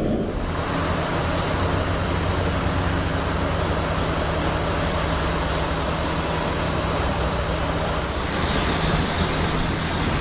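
A vehicle engine running steadily with a low hum, and a brighter, hissier noise joining about eight seconds in.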